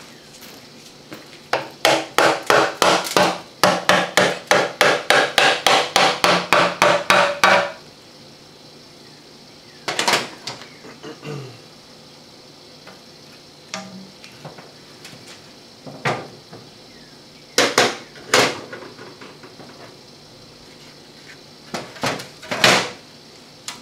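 Rapid hammer taps on the steel oil pan of a Chrysler 727 automatic transmission, about four strikes a second with a metallic ring, knocking the pan loose from its gasket; they stop suddenly after about six seconds. A few single metal clanks follow as the pan comes off and is set down.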